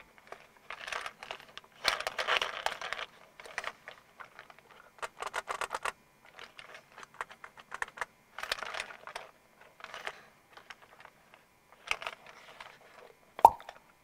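A hard plastic toy train handled and turned over in the hands: irregular light clicks, taps and rattles of plastic. A sharp snap comes near the end as the battery cover unclips.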